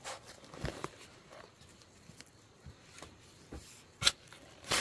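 A string of irregular knocks and scrapes, the loudest about four seconds in.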